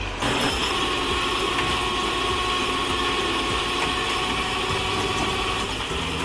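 Heavy tow truck's engine running steadily at a low idle while it works, with a steady high whine over it from about a second in until near the end.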